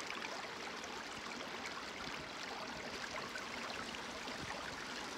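Creek water running steadily through a fluid bed gold sluice set in the stream, with small splashes and gurgles throughout.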